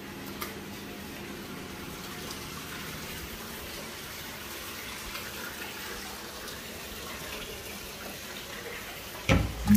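Steady, even rushing noise like running water, with a sudden loud thump near the end.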